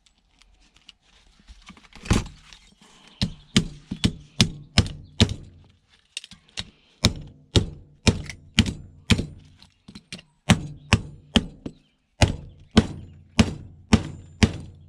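A long run of blows on metal, about two to three a second, each a sharp knock with a short ringing tail, starting about two seconds in: scrap electrical parts being hammered apart.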